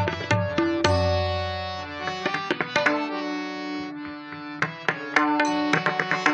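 Pakhwaj and tabla drum strokes played together over a harmonium holding a melody. About a second in, a deep bass stroke rings out and fades. The drumming thins to a few strokes around the middle, leaving the harmonium's held note, then picks up into quick, dense strokes near the end.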